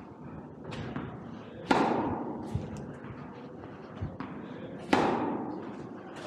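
Tennis balls being hit by racquets in a rally on an indoor court. Two loud, echoing racquet strikes come about a second and a half in and again near five seconds, with quieter hits and bounces between them.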